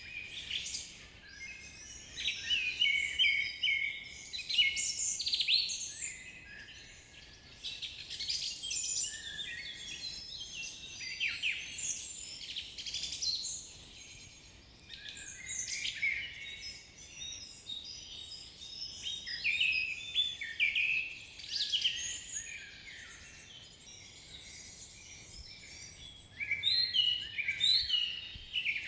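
Several songbirds singing together: a dense chorus of overlapping high chirps, whistles and trills that swells in bursts of a few seconds with brief lulls between.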